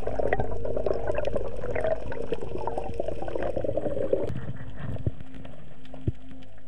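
Underwater water noise picked up by a dive camera: gurgling and bubbling for about four seconds, then quieter, with a few sharp clicks.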